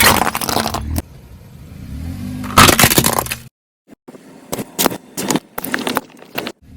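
Objects crunching and cracking as they are crushed under a car's tyres: a loud crunch at the start, another about two and a half seconds in, then a string of short, quieter cracks after a brief break.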